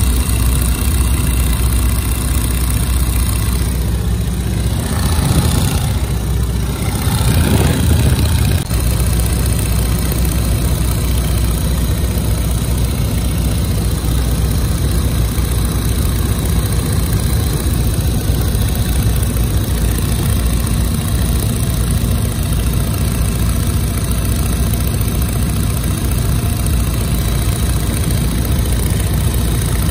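Biplane's piston engine running steadily and loud, with a louder swell from about five to eight seconds in.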